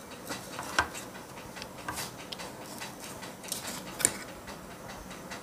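Scattered light clicks and knocks of a monitor's power-supply circuit board being handled and lifted out of its metal chassis, a few irregular taps over a quiet background.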